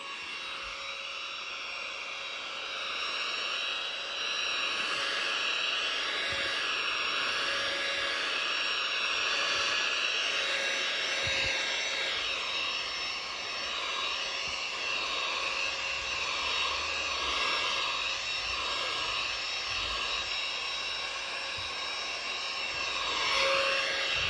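Handheld mini vacuum cleaner running continuously with a high motor whine, the pitch of its airflow wavering up and down as it is worked over a surface.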